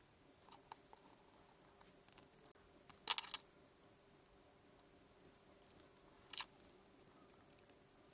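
A few small metallic clicks and clinks as tiny parts are handled while the electrode is fitted into the tweeter's ceramic holder: a faint tick near the start, a quick cluster of clinks about three seconds in, and one more about six seconds in, with the room otherwise quiet.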